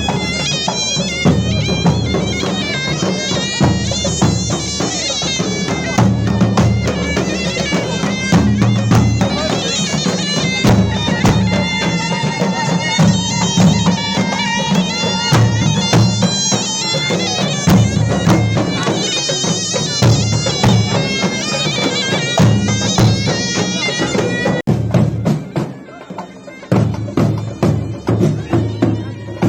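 Tunisian hadra procession music: a loud, wavering reed wind instrument playing over heavy drumming. About 25 seconds in it changes abruptly to a thinner, more broken passage.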